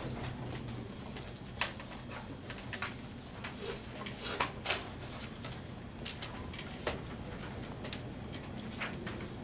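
Quiet room with a steady low hum, broken by scattered small clicks and rustles of papers being handled; the sharpest ticks come at about one and a half, four and a half and seven seconds in.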